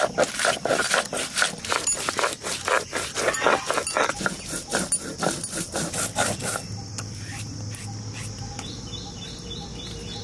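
Stone muller rubbed and rocked over a flat grinding stone (shil-nora), crushing roasted whole spices in quick scraping strokes, about three a second. The grinding stops about six and a half seconds in, leaving an insect chirping in a steady repeated pattern.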